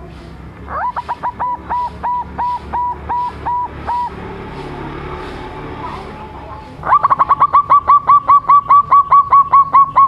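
Young zebra dove (perkutut) cooing in two runs of short, clipped notes: about ten notes, then after a pause of a few seconds a louder, quicker run of about twenty.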